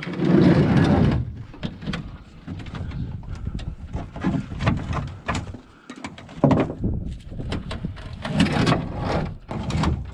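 Wooden pallets and chain-link fence shifting and scraping in a pickup truck bed as they are handled. There is a louder scrape in the first second, then scattered knocks and rattles.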